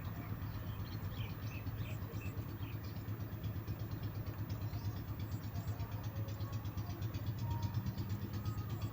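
Outdoor ambience: a steady low rumble, with faint, short, high bird chirps in the first few seconds.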